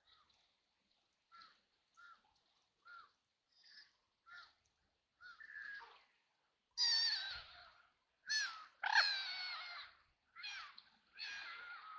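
A bird calling over and over in harsh, rasping calls: short and faint at first, then louder and longer from about seven seconds in.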